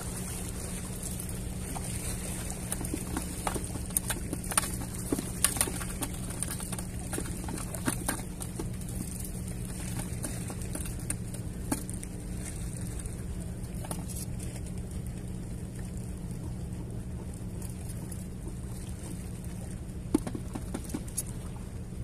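Steady low hum of wind and water along a seawall, overlaid by scattered light clicks and taps, most of them a few seconds in and a sharper one near the end.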